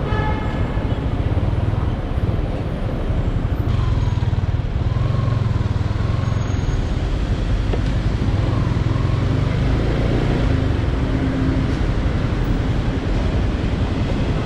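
Yamaha Sniper 155's single-cylinder four-stroke engine running steadily under way, with road and traffic noise around it.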